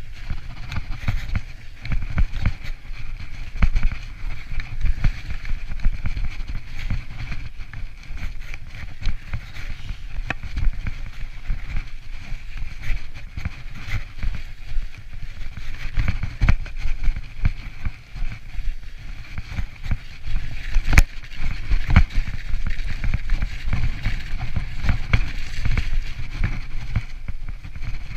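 Mountain bike ridden downhill over snowy, bumpy ground, heard from a chest-mounted camera: a low buffeting rumble with the bike rattling and knocking over bumps, and one sharp knock about two-thirds of the way through.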